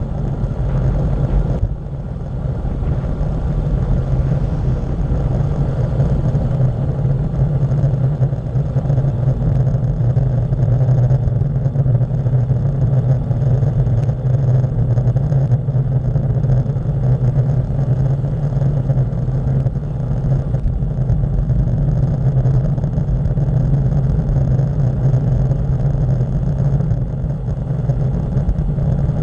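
Steady rush of wind buffeting a bicycle-mounted camera's microphone on a fast downhill ride, mixed with low rumble of tyres on asphalt; it dips briefly about two seconds in.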